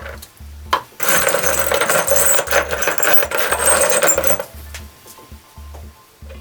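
Rough abrasive scraping on a workpiece for about three seconds, starting about a second in, over background music with a steady beat.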